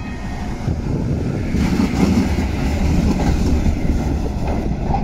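Heritage La Brugeoise-built PCC tram passing close by on street track: steel wheels rumbling on the rails and running gear noise, growing louder about a second and a half in as the car goes by.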